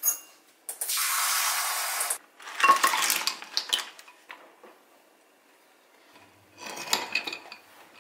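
A metal spoon clinks against a white ceramic bowl, then water is poured in with a steady hiss for about a second and a half, making salt water for purging clams. The spoon then stirs and clinks among the clams in the bowl, with another short run of clinks near the end.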